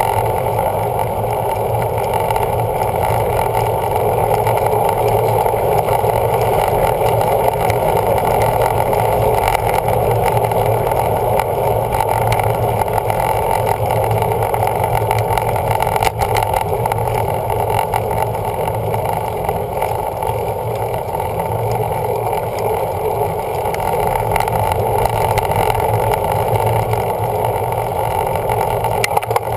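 Steady rushing wind and road noise on the microphone of a camera riding on a road bike, with a single click about halfway through.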